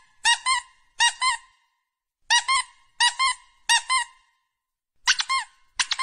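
Rubber squeaky-toy squeaks, each a quick double squeak like a squeeze and release, seven in all, coming in groups of two or three with short silent gaps between groups. It is a squeak sound effect timed to each press of a finger on a dog's nose.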